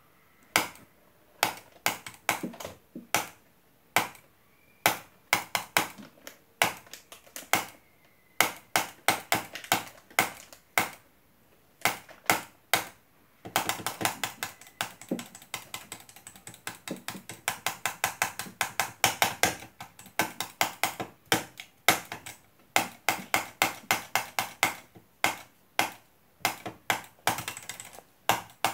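Computer mouse clicking over and over, the clicks irregularly spaced, with a fast run of rapid clicks in the middle.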